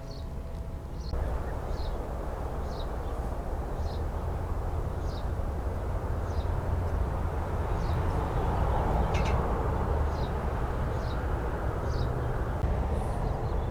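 Strong wind rushing and buffeting the microphone, rising about a second in and swelling into a gust past the middle. Over it, a short high chirp repeats about once a second.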